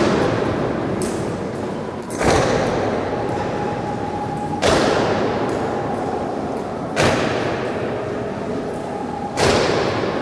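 Honour guards' boots stamping in a slow ceremonial march, one heavy stamp about every two and a half seconds, five in all, each echoing long through the large round hall.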